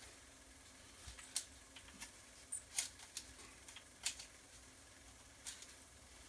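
Scattered, irregular light clicks and taps of plastic drone parts being handled and fitted together.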